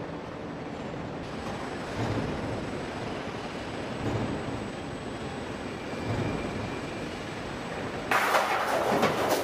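Steady factory machinery noise at a sheet-metal coil line, with a soft low thump about every two seconds. About eight seconds in, loud metallic clattering and banging starts suddenly.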